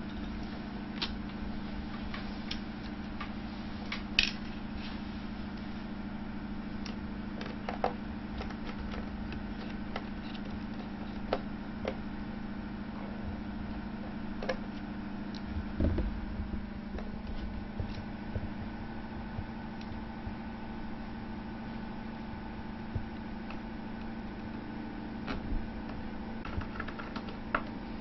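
Small screwdriver driving screws into a laptop's metal display hinge: scattered small clicks and taps of the tool and hinge parts, over a steady low hum. The sharpest click comes about four seconds in, and a duller knock about sixteen seconds in.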